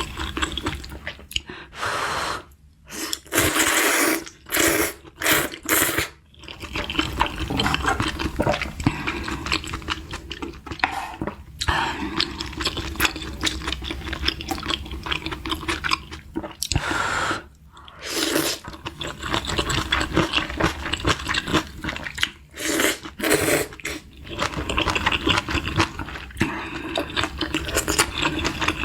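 Close-miked eating sounds of kimchi udon and kimbap: steady wet chewing with many small clicks, broken by several louder wet bursts a second or so long.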